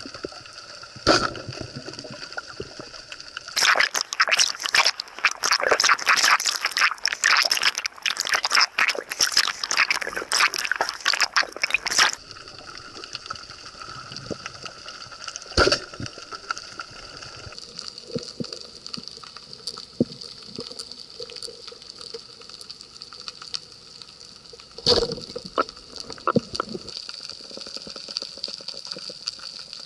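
Underwater sound of a speared fish being handled on a speargun shaft: a dense run of loud crackling and rattling clicks lasting about eight seconds, and a few single sharp knocks before and after it, over a steady high-pitched tone.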